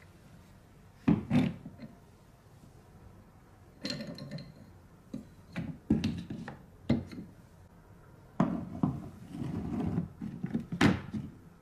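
Plastic and wooden marble-run parts being set down on a wooden floor and fitted together by hand: a series of irregular knocks and clacks.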